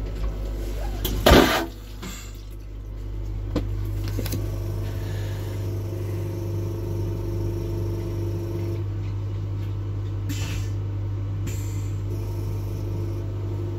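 Railway carriage vacuum toilet flushing: a short, loud whoosh about a second in, then a steady mechanical hum over a constant low electrical drone.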